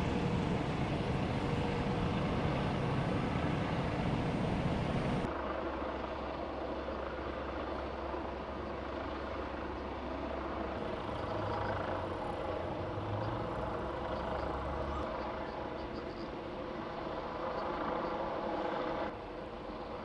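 Steady low outdoor rumble, engine-like, as of distant vehicles, with abrupt changes in tone at several edits.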